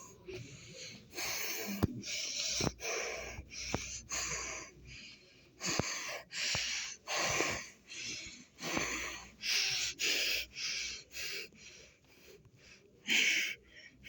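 Rasping, wheezy breathing close to the microphone, about one breath a second, pausing briefly near the end before one more breath.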